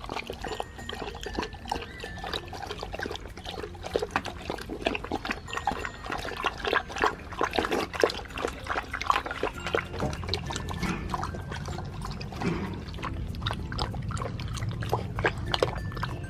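Siberian husky puppies and an adult husky lapping water from a plastic tub: quick, irregular wet laps and small splashes. A low rumble comes in about ten seconds in.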